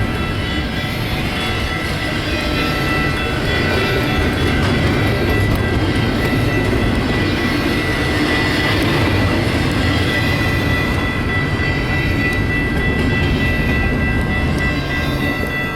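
Intermodal double-stack freight cars rolling past on the rails: a steady, loud rumble with wheel clatter and a thin, steady high-pitched ringing over it.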